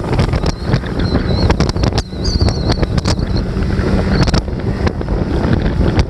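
Wind buffeting the microphone on a small motorboat running across choppy lake water, with the boat's motor running underneath and scattered sharp knocks.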